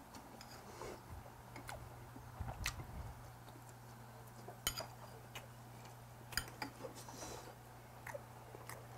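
Faint eating sounds: metal chopsticks clicking against dishes a handful of times, with quiet chewing, over a steady low hum.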